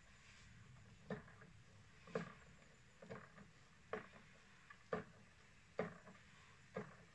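Hand-pumped knapsack sprayer being worked while spraying fruit trees: a short, faint knock from the pump lever about once a second, seven strokes in all.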